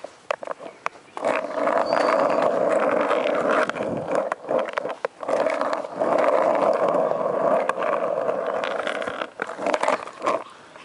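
Skateboard wheels rolling over rough asphalt in two long, even runs, with knocks and clacks of the board and pushing feet before, between and after them.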